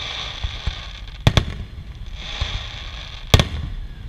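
Fireworks display: aerial shells bursting with sharp bangs, a close pair about a second in and a louder single bang near the end, over a continuous hissing crackle.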